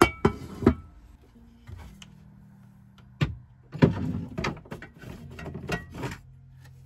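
A series of knocks and thuds, as of things being handled and set down or a door or cupboard shutting: a few sharp knocks at the start, one a little after three seconds in, then a denser cluster of bumps for the next couple of seconds.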